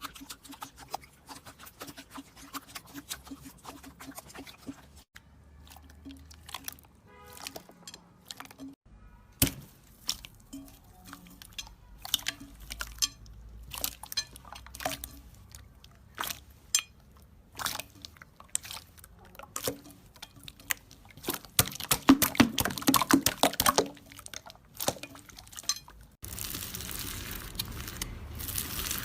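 Slime being squeezed and poked by hand, giving irregular sticky clicks and crackly pops, with a dense run of loud crackles about three quarters of the way through and a steadier crinkling noise near the end.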